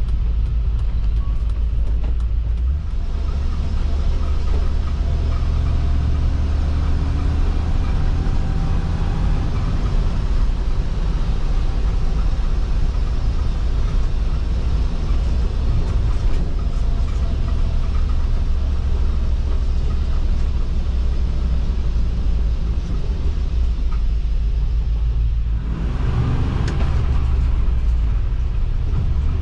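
Land Rover Defender 110's V8 engine running as it drives, heard from inside the cab as a steady low rumble. Near the end the engine note dips briefly and then picks up again.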